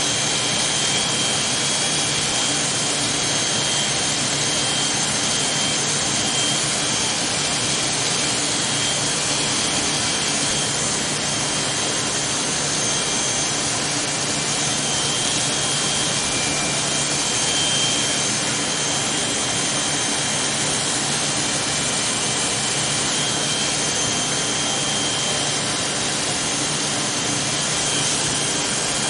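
Electric hair clippers running with a steady, even buzz while cutting short hair.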